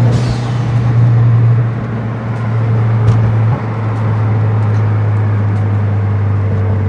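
Engine and road noise of a moving car heard from inside the cabin: a loud, steady low drone over a rushing road hiss.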